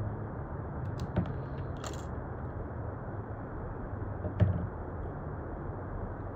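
A few light clicks and taps of small tools and parts being handled during a phone screen repair, the loudest about four seconds in, over a steady low hum.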